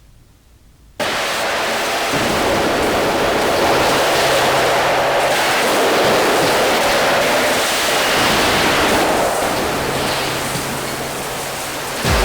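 A firework burning inside a closed box: a loud, dense, steady hissing rush that starts abruptly about a second in and holds for about eleven seconds.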